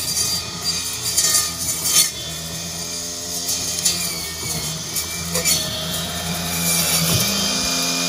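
Remote-control robot's spinning saw blade and drive motors running as it chews through weeds and brush. There are sharp snaps and cracks in the first two seconds, then a steady motor hum that shifts pitch near the end.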